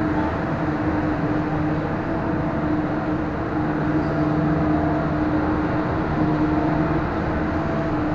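Steady mechanical hum over an even rushing noise, unbroken throughout.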